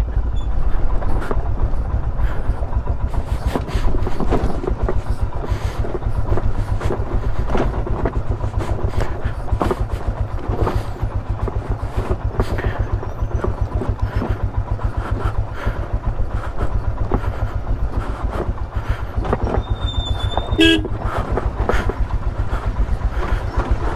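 An adventure motorcycle running at low speed in gear down a rocky dirt trail: steady rapid engine pulsing mixed with the rattle and knocks of the bike over loose stones, heard from on board. A short, high, horn-like beep about three-quarters of the way through.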